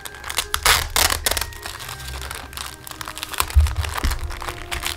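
Thin clear plastic zip bags crinkling in irregular bursts as they are handled, the loudest crackles coming about a second in, with a dull bump about three and a half seconds in.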